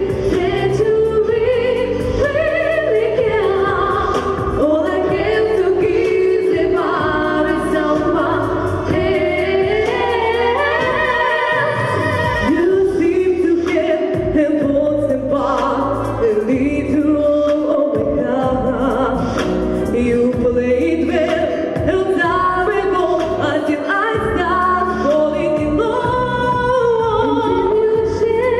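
Two girls singing a song as a vocal duet, held notes with vibrato, over a continuous musical accompaniment with a steady bass line.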